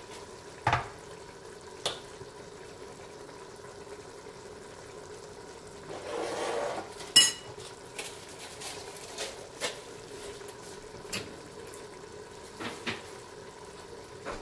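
Kitchen utensils clinking and knocking against pots and dishes in a scattering of separate sharp clicks, the loudest about seven seconds in, with a short rushing swell just before it.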